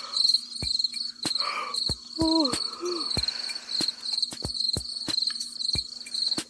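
Crickets chirping in a steady pulsing trill, with regular ticks underneath. About two seconds in, a short low two-note hoot falls in pitch.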